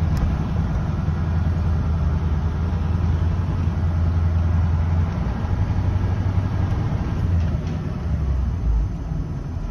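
Heavy crane truck's engine running steadily at low speed, heard from inside the cab as the truck rolls slowly forward. Its low hum eases a little about five seconds in.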